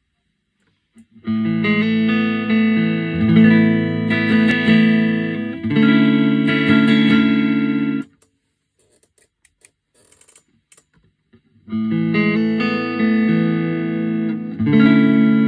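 Fender Road Worn Player Stratocaster electric guitar played through a T-Rex Reptile delay pedal into a Roland JC-40 amp, with sustained ringing chords and notes. The playing stops abruptly about eight seconds in, leaving a few seconds of near silence with faint ticks, then resumes about twelve seconds in.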